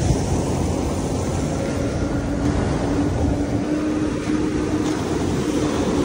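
Wind rushing over the microphone of a fat-tire electric bike riding at about 16 mph on sand, steady throughout, with a faint steady hum from the Bafang motor.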